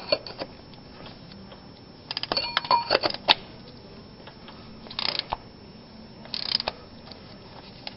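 Sharp metal clicks and clinks from a filter wrench and tools working the oil filter loose under a minivan, a cluster of them about two to three seconds in, then two short scraping rustles.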